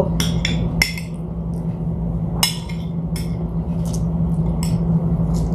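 Light, scattered clinks and ticks of a metal spoon against a dinner plate while eating, with one sharper clink about two and a half seconds in, over a steady low hum.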